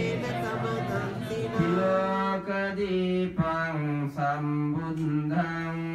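A Buddhist monk's male voice chanting verses in a slow, melodic recitation, holding each note for about a second with gliding changes of pitch and short breaks for breath.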